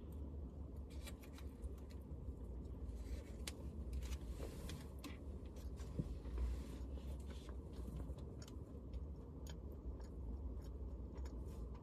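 A person chewing food, with small clicks and crinkles from a clear plastic food container being handled, over a steady low hum inside a car.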